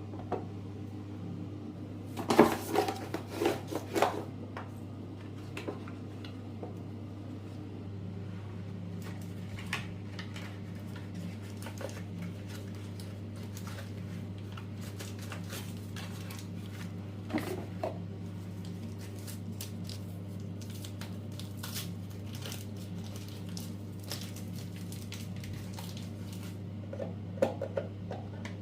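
A kitchen appliance hums steadily while dishes and utensils clatter now and then, loudest in a cluster of knocks about two to four seconds in and again briefly near the end.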